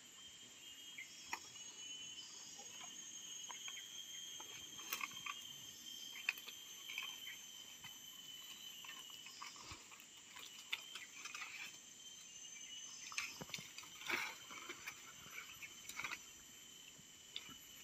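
Steady, faint, high-pitched chorus of insects, with scattered soft clicks and rustles as a rope is handled and coiled.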